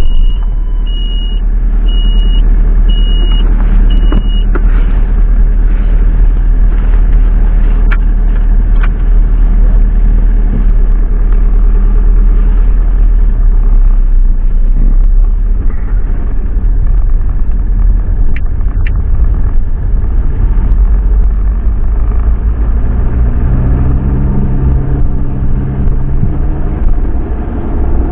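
Van engine running and road rumble heard from inside the cab while driving. A dashboard warning chime beeps about five times in the first few seconds.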